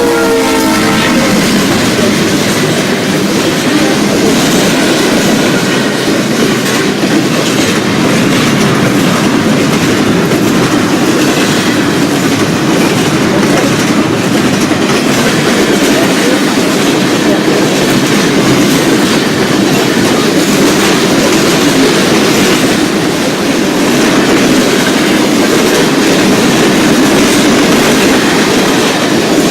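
Norfolk Southern mixed freight train rolling past at close range, its cars clattering over the rail joints in a steady, loud clickety-clack. The lead ex-Conrail SD60M's Leslie RS3L horn fades out about a second in.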